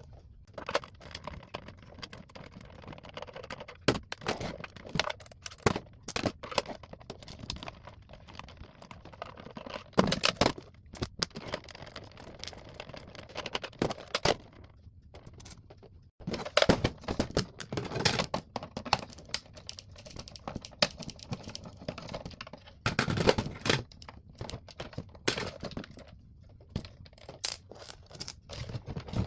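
Irregular clicks, knocks and rattles of a plastic radio casing and its small parts being handled as it is taken apart.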